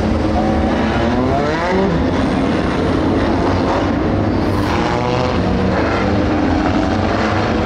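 A pack of compact dirt-track race cars circling the track, several engines running at once and revving up and down as they pass, with pitch rising and falling about a second in and again around the middle.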